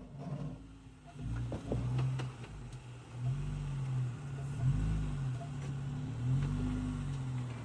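Modified 2013 Jeep Wrangler Unlimited's engine revving in repeated surges and dropping back while the Jeep crawls up rock ledges, with a few sharp knocks near two seconds in.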